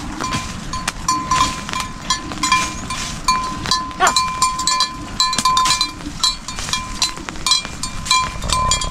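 Small metal bells, such as those worn by goats or other livestock, ringing over and over in short irregular strokes, with many light clinks and knocks.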